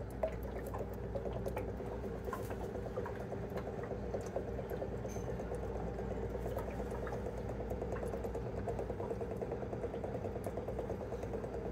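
Plastic gravity pet water dispenser filling its bowl: water running steadily out of the upturned bottle, with air bubbling up into the bottle as it drains.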